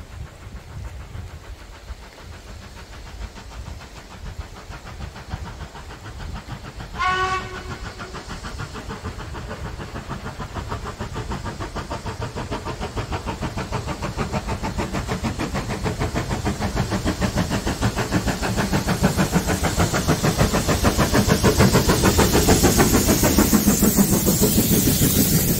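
Ivatt Class 2MT 2-6-2 tank locomotive No 41241 approaching under steam. It gives one short whistle blast about seven seconds in. Then its exhaust beats grow steadily louder as it draws near and passes close by near the end.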